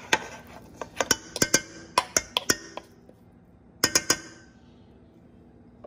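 A fork and a wooden spoon clinking and scraping against a metal mixing bowl while chopped spinach is stirred into ground chicken. The clinks come quickly through the first three seconds, then a quick cluster follows about four seconds in.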